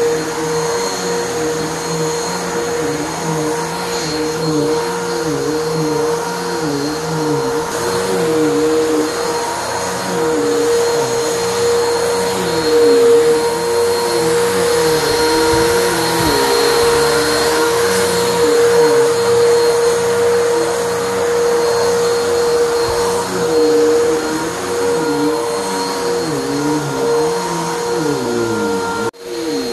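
Vacuum cleaner running on carpet, pre-vacuuming dry soil before steam cleaning: a steady motor whine over a lower hum that keeps rising and falling. The sound cuts out briefly just before the end.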